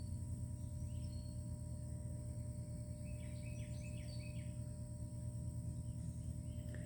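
Steady low hum of background noise, with a short run of faint bird chirps about three seconds in.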